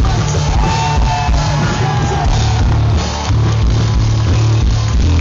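A rock band playing live at high volume, with a steady drum beat, heavy bass and guitar, and a sung melody over it, heard from within the audience.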